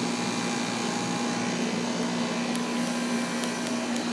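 Outdoor central air conditioner condensing unit running: a steady rush of fan noise with a constant low hum.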